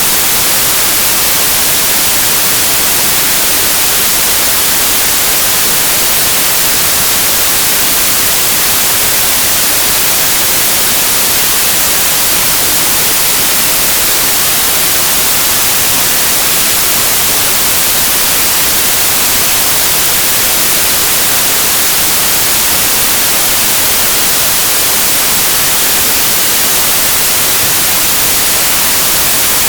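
Steady, loud white noise: an even hiss across all pitches, brightest at the top, with no changes or events.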